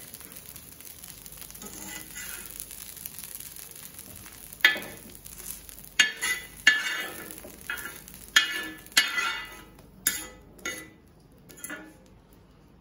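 Steel slotted skimmer scraping and clinking on a hot tawa as fried idli pieces are scooped off, in a run of short sharp scrapes about every half second starting a few seconds in, over a faint sizzle of oil on the griddle.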